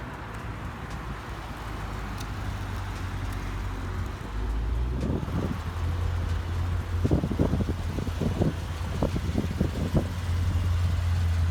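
A car engine running, a steady low rumble that grows louder about four seconds in, with irregular short bumps over it.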